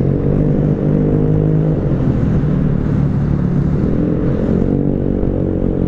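Rusi RFI 175 scooter with an aftermarket Akrapovič open-pipe muffler, the exhaust running hard and loud under throttle in a tunnel, its pitch rising and falling a little.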